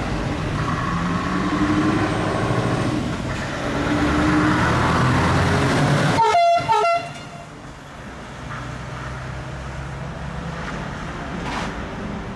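Scania V8 truck driving past with a steady engine rumble, then two short air-horn toots about six seconds in, after which the engine sound drops away to a quieter rumble.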